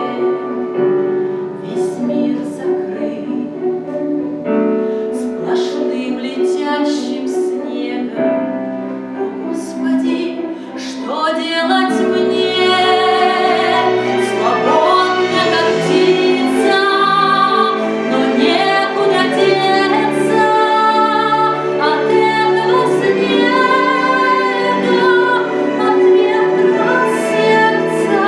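Vocal ensemble of female voices singing in harmony, with long held notes; the singing grows louder about twelve seconds in.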